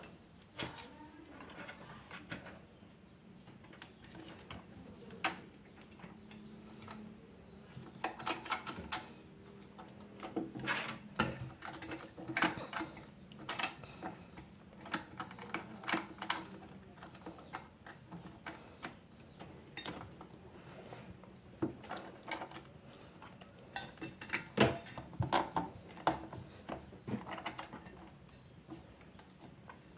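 Hands working parts into place inside a desktop PC during a processor swap: irregular clicks, taps and scraping of plastic and metal, busiest in the second half, over a faint steady hum.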